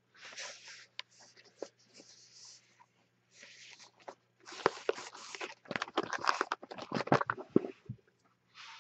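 Cellophane shrink-wrap on cardboard trading card boxes crinkling as the boxes are handled, in short rustles at first. About five seconds in comes a denser run of crinkles and light knocks as the boxes are moved and set down.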